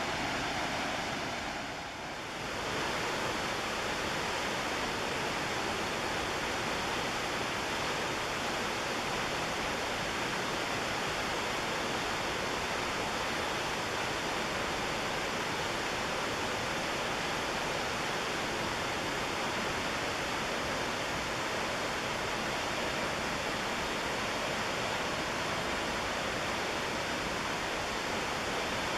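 Steady rush of falling water from a waterfall on the McKenzie River, with a brief dip about two seconds in.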